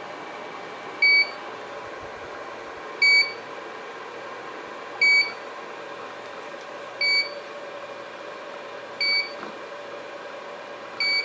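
Stanley 800-watt power inverter sounding a short, high beep every two seconds, six times, over a steady hum. The beeps are its warning that the coffee maker draws about 840 watts, above the inverter's 800-watt rating.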